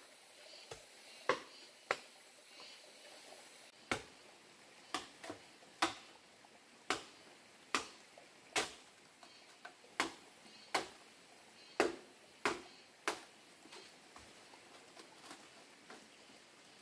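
A series of sharp knocks, most about a second apart and unevenly spaced, thinning out near the end, over a faint steady hiss.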